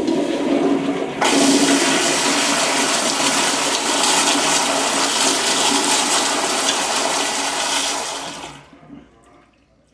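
ProFlo Carlton toilet flushing: water rushes out of the tank, then jumps to a loud, steady hiss about a second in, which fades away near the end.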